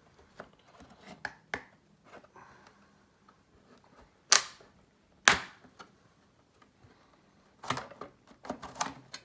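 Clicks and knocks of an accordion's cover being taken off and handled: a few light clicks, two loud knocks about a second apart near the middle, then a cluster of clicks near the end.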